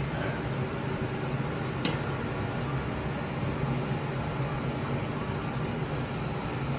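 Steady low hum and hiss of commercial kitchen equipment, with one sharp click about two seconds in.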